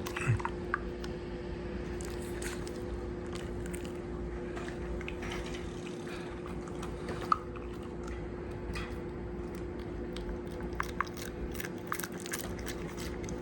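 A Shiba Inu chewing and crunching on something it has found, with irregular crackling bites throughout, over a steady low hum.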